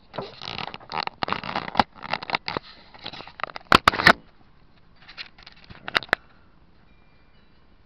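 Handling noise on a small camera's microphone: fingers rubbing and scraping over the camera body in irregular bursts, with several sharp clicks, the loudest a little before the middle and two more about six seconds in, then only faint noise near the end.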